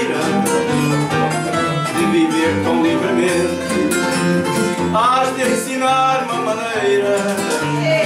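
Live Portuguese folk song with plucked guitar accompaniment, mostly instrumental, in a steady flowing run of notes.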